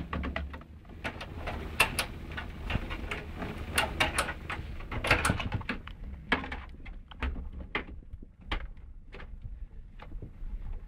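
Irregular clicks and knocks of hard plastic and metal parts being handled and fitted inside a desktop PC case, several sharp taps a second at times, thinning out toward the end.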